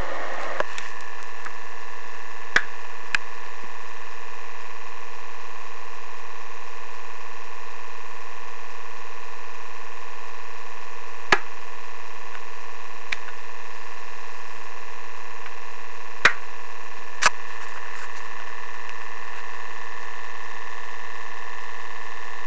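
Steady whir of a small electric motor holding a few even tones, with about six sharp clicks scattered through it.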